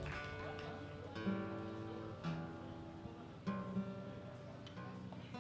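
Guitar playing slow picked chords between songs, each chord left to ring before the next is struck about a second later.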